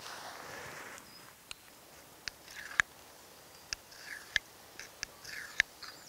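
Steel knife blade being stroked and tapped against a hard sharpening stone: a soft scrape at first, then six or so short, sharp clicks and brief scrapes at uneven intervals, the loudest near the middle.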